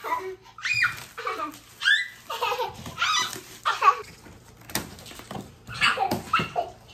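A toddler squealing and laughing in a string of short, high calls that slide up and down in pitch, with one sharp click a little under five seconds in.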